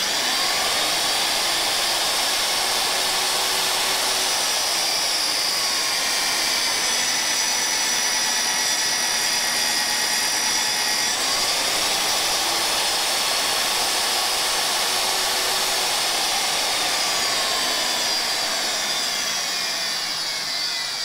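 Vevor MD50 magnetic drill press running as its annular cutter bores a 1-inch hole through steel tubing. Its motor pitch sags under the cutting load and picks back up, twice over.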